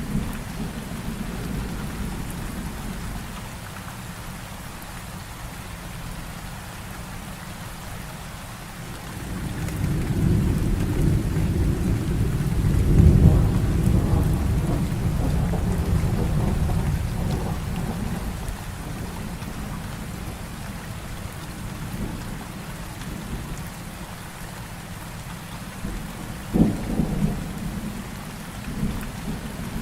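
Heavy rain falling steadily through a thunderstorm. A long roll of thunder swells about a third of the way in and fades over several seconds, and a short, sharp crack of thunder comes near the end.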